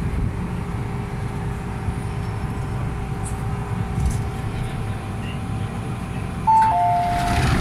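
Steady low rumble inside an MTR M-Train carriage as it pulls into the platform. About six and a half seconds in, the train's electronic door chime starts, alternating a higher and a lower note as the doors open.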